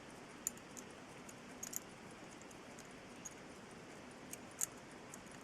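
Light metallic clicks and small taps of brass watch parts and tools being handled, a few scattered ticks over a quiet steady hiss, the sharpest about half a second in and another near the end.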